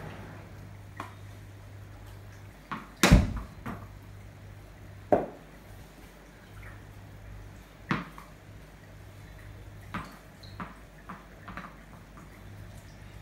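Sharp knocks from a cricket bat during stroke practice: one loud knock about three seconds in, then fainter knocks every two to three seconds, over a low steady hum.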